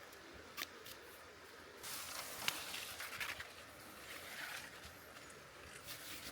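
Rustling with a few light, sharp clicks as camping gear is handled, loudest about two to three and a half seconds in, over a faint steady hiss.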